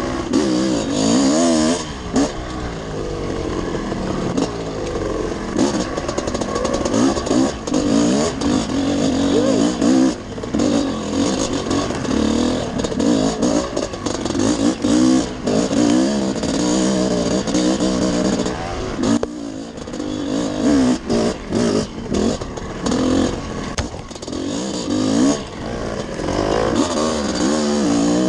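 Dirt bike engine under way on a rough trail, the revs rising and falling with constant throttle changes, with brief drops in engine sound about two-thirds of the way through.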